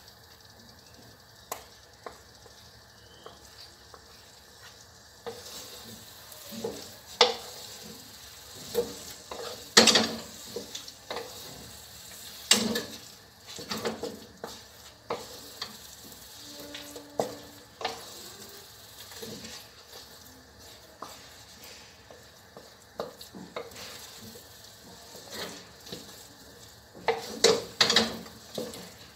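Two wooden spatulas stirring and folding a thick, sticky batch of biko (glutinous rice cooked in coconut milk and sugar) in a wok: irregular scrapes and knocks against the pan, starting about five seconds in and loudest near the end, as the mixture is worked until it turns sticky.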